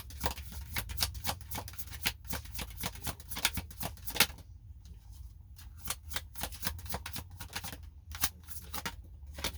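Tarot cards being shuffled and handled: a rapid run of flicking card clicks for about four seconds, then slower, scattered flicks. A steady low hum runs underneath.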